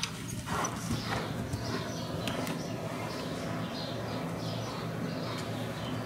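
A horse's hoofbeats on the soft footing of an indoor arena as it moves under a rider, over a steady low hum.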